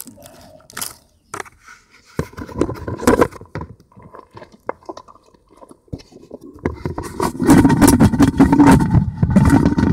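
Plastic salad spinner handled with scattered clicks and knocks, then from about seven seconds in its basket spinning up fast with a loud, steady whirring rattle.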